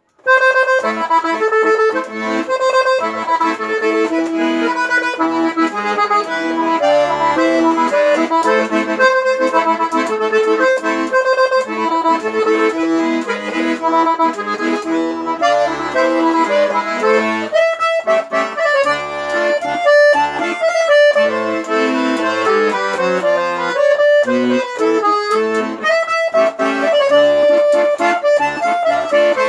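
Solo accordion (sanfona) playing a tune, a melody over separate low bass notes, starting right after a brief pause.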